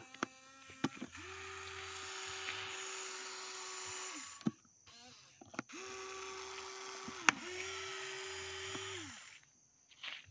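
A toy RC excavator's small electric motors whine as it works its boom and bucket. They run in three spells of a few seconds, each rising quickly in pitch as it starts and dropping away as it stops, with sharp clicks and knocks in between. The loudest knock comes about seven seconds in.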